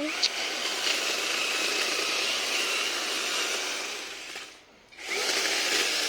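Chainsaw cutting through guava wood, running loud and steady; it drops away for about half a second between two cuts, then picks up again.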